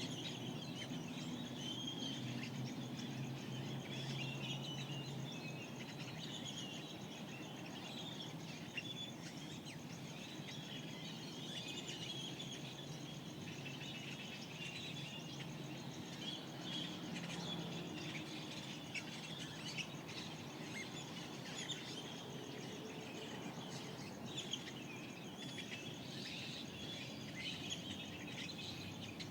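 Mojave Desert dawn chorus: many small birds chirping and calling over and across one another in quick, high notes. A steady low hum runs underneath.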